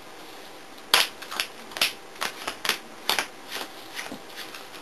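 Yu-Gi-Oh trading cards being slapped and tapped down onto the playmats: a quick, irregular series of about a dozen sharp clicks and snaps, the first the loudest.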